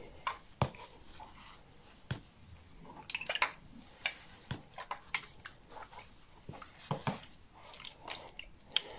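Hand trigger spray bottle misting water onto peat substrate in a plastic tub: a run of short spritzes and trigger clicks, irregularly spaced.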